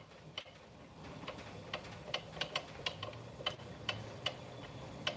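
Faint, uneven clicking, about two or three clicks a second, from the crank wheel of a Last Chance Archery EZ bow press being turned to back the press off a crossbow.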